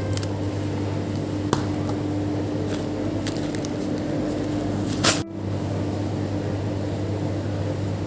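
Steady low electrical hum of a supermarket's refrigerated freezer cases and store machinery, with a few faint clicks and one sharp click about five seconds in.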